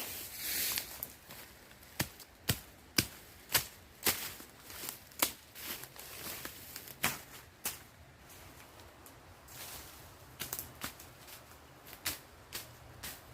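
Tool strikes on wood during shelter building: a run of sharp knocks about two a second, then a few spaced, lighter knocks and clicks.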